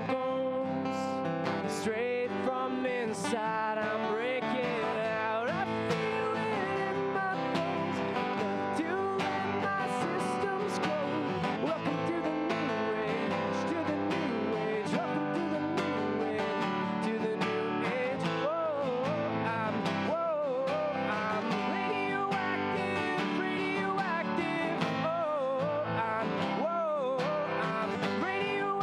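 A man singing live while strumming an acoustic guitar, amplified through a microphone.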